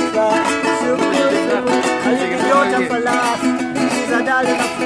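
Small acoustic guitar strummed in a steady rhythm between sung lines, with chords ringing.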